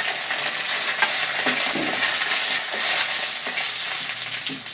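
Curry leaves sputtering in hot oil in a wok along with mustard seeds and dried red chillies: a loud, steady sizzle, the tempering for a curry.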